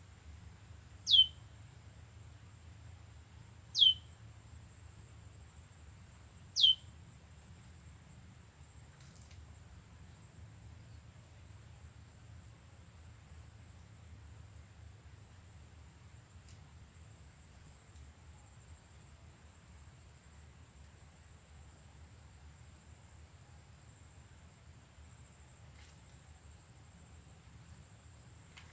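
A prenjak lumut, a small songbird, gives three sharp, quick calls that sweep downward in pitch, evenly spaced a little under three seconds apart in the first seven seconds. Under them runs a steady, high-pitched insect drone.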